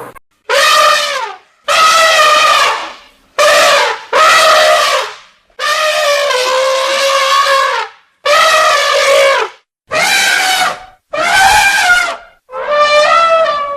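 African elephant trumpeting in a series of about nine loud blasts, each around a second long with one longer blast in the middle, many dropping in pitch at the end, with short gaps between them: the call of an angry elephant.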